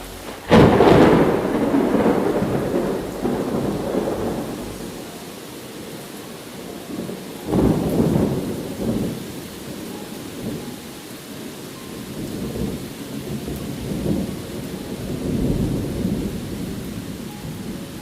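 Thunder over steady rain: a sudden loud clap about half a second in that rolls on for several seconds, a second peal about seven and a half seconds in, and softer rumbles near the end.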